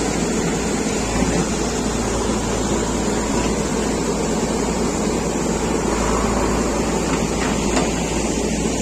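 JCB 3DX backhoe loader's diesel engine running steadily while the machine works.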